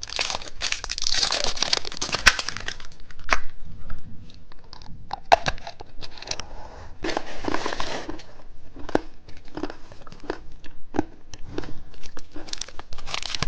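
Plastic candy wrapper being torn open and crinkled, with scattered sharp clicks and taps of the packaging being handled.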